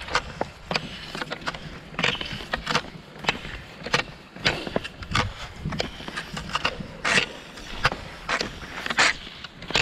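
Classic cross-country skiing on thin snow over a paved path: the Fischer Twin Skin skis swish and scrape along, and the poles plant with sharp clicks and scratches about two to three times a second.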